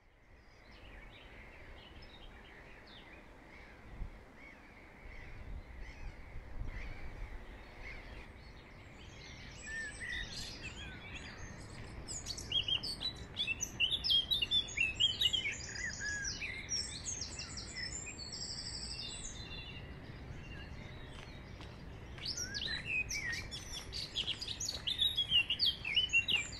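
Songbirds singing in woodland, a mix of quick chirps and warbling phrases that grow busier about halfway in, over a steady low rumble of outdoor background noise.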